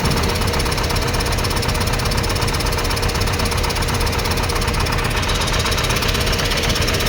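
A vehicle engine running steadily: a low rumble with a thin steady hum and a constant hiss over it, with no change in pitch or level.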